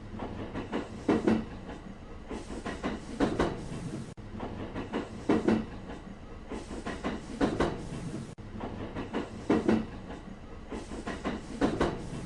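Train wheels clattering over rail joints as the cars roll past. Each group of clicks with a low thud comes back about every two seconds, with a steady hiss between.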